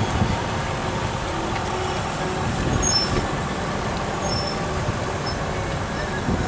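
Steady rumble of vehicle engines and tyres in slow traffic on a dirt road, with wind buffeting the microphone.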